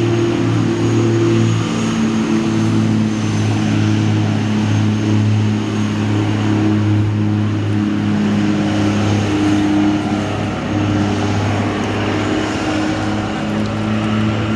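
A motor engine running steadily at an even, unchanging pitch, loud throughout.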